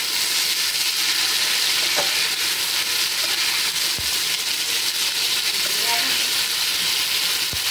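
Turmeric-marinated hilsa fish pieces sizzling steadily as they shallow-fry in mustard oil in a pan, with a spatula turning them and a couple of light knocks against the pan.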